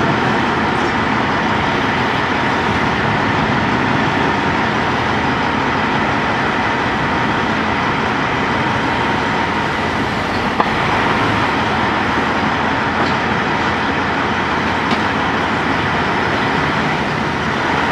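Steady road traffic and engine noise, with cars passing, and a brief click about ten and a half seconds in.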